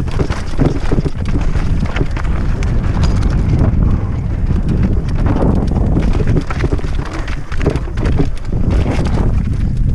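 Mountain bike clattering down a rocky trail: tyres crunching over stones and the bike rattling with a rapid, uneven stream of knocks. Wind rumble on the microphone sits underneath.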